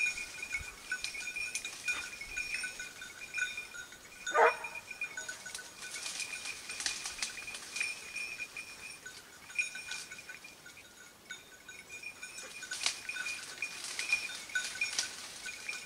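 A hunting dog's bell jingling on and off as the dog works through the brush, with one short bark about four seconds in.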